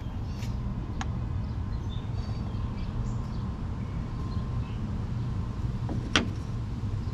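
A few light metal clicks and one sharper click about six seconds in, from a steel eye bolt and chain being handled against a plywood board, over a steady low rumble.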